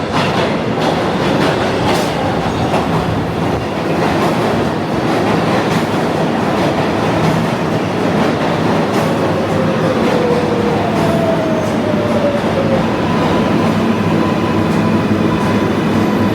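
New York City subway train running on the rails: a loud steady rumble with some clatter. A drawn-out tone falls in pitch about nine to twelve seconds in, and a steady higher tone sets in near the end.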